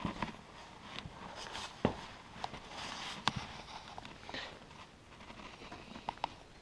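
Footsteps crunching in packed snow, with irregular sharp knocks; the sharpest come about two seconds and about three seconds in.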